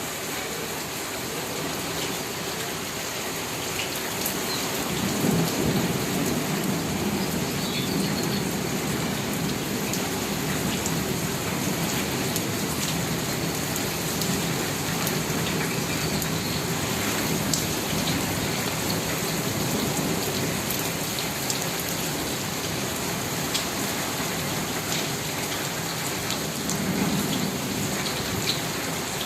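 Steady rain falling and pattering on surfaces, with scattered drop ticks. A low rumble of thunder rolls in about five seconds in and lingers, swelling again near the end.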